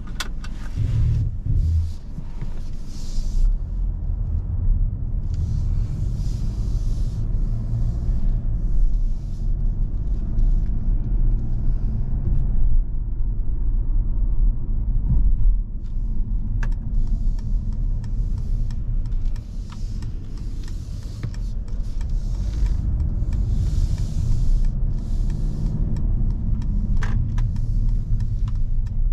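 Mercedes-Benz E 220 d's four-cylinder diesel and tyre noise heard from inside the cabin as the car pulls away and drives at low speed. There is a low steady rumble throughout, swelling about a second in, with a couple of single clicks later on.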